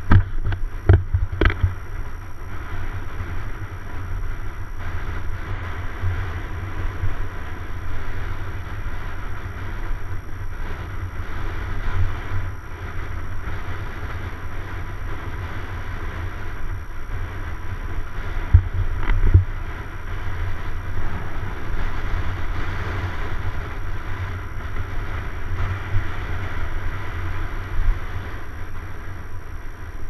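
Steady wind rush on the microphone with tyre noise and a low rumble as a mountain bike rolls along a paved road. A few sharp knocks come in the first second or two and twice more at about 19 seconds.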